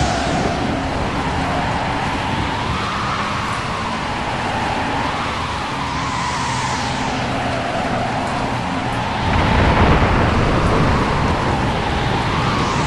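Rainstorm sound effect: a steady hiss of heavy rain with a howling wind rising and falling every few seconds. A deep rumble of thunder swells about nine seconds in.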